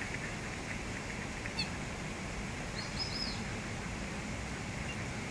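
A few faint, short, high bird chirps, one about a second and a half in and a quick cluster about three seconds in, over a steady outdoor background hiss.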